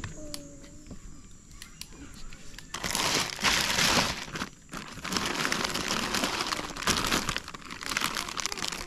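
Plastic food bags crinkling as they are handled and lifted in a cooler, starting about three seconds in and loudest soon after.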